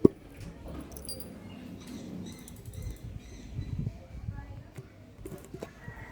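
A sharp click right at the start, then faint irregular rustling and handling noises with small ticks as a tub of car cream wax is opened.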